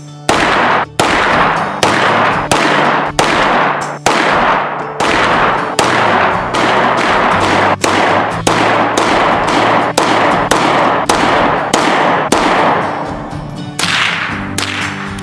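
Pistol and .22 rifle gunshots fired in quick succession, roughly two a second, each crack followed by a short ringing echo, with a brief lull near the end. A quiet music bed runs underneath.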